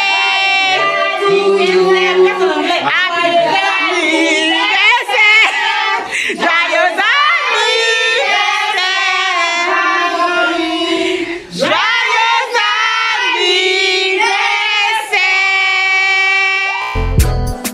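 A group of children and women singing together, loud, with long held and wavering notes. Near the end it cuts abruptly to recorded music with a heavy bass beat.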